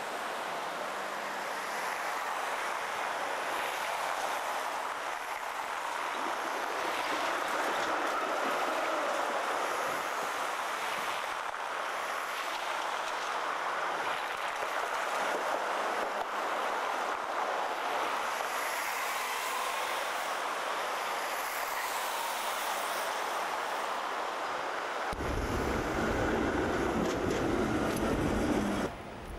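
Street noise of articulated electric trams running along city tramlines, a steady rolling hiss and rumble from wheels on rail and passing traffic. Near the end a tram passes close by with a heavier low rumble, which cuts off suddenly just before the end.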